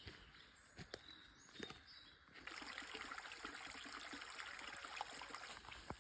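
Faint water trickling, setting in about two and a half seconds in, after a few scattered clicks and brief high chirps.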